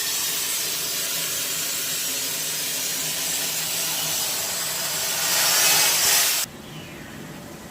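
Torch of a CNC gantry cutting machine hissing steadily as it cuts, growing a little louder, then cutting off suddenly about six and a half seconds in as the cut stops.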